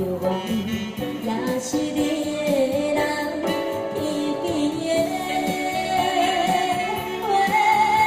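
Saxophone playing a slow, sentimental melody of held, gliding notes over an electronic keyboard backing with a steady beat; the melody climbs to higher held notes in the second half.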